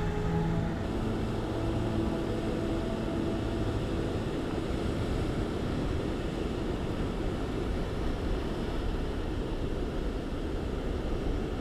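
Steady outdoor rumble of wind and sea surf on a rocky shore, even throughout with no distinct events.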